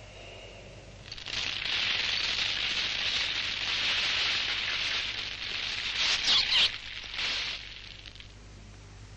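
A snake's harsh, hiss-like noise that starts about a second in, holds steadily for several seconds, then ends in a few short, louder bursts.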